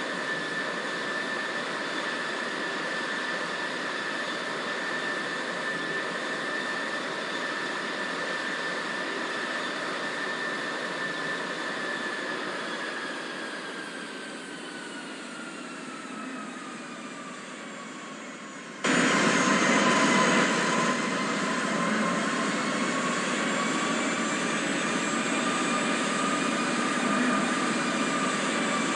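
Boeing 787-8 jet engines running steadily with a high whine whose pitch sinks over several seconds, as when thrust is eased back. Near the two-thirds mark the sound cuts abruptly to louder engine noise.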